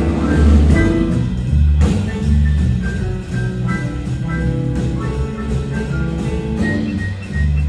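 Live band playing an instrumental passage, with a bass line repeating and held melodic notes over drums.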